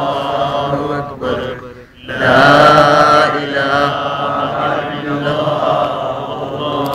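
Chanted Islamic religious recitation by a voice in long held phrases. It breaks off briefly about two seconds in and resumes louder.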